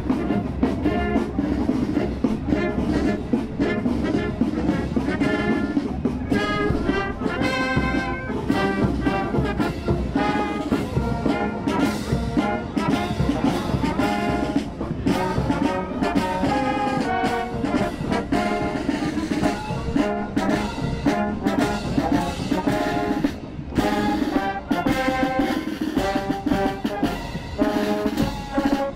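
A marching brass band playing a march: trumpets, flugelhorns and tuba carrying the tune, with clarinets, and a regular beat underneath.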